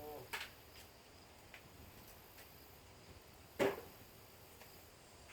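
Scrap pieces being handled and sorted: a light click near the start, then one sharp clank about three and a half seconds in. Faint insects chirp in the background.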